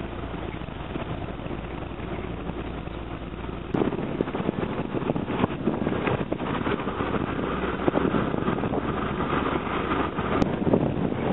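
A bus running on the road, heard from inside: a steady engine hum with road noise, then from about four seconds in, after a cut, louder rush and wind noise with many rattles and clatters.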